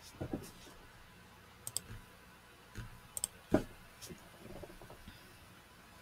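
Scattered short clicks and light knocks at a computer desk, typical of a mouse being clicked, including two quick double-clicks, with one louder knock about three and a half seconds in.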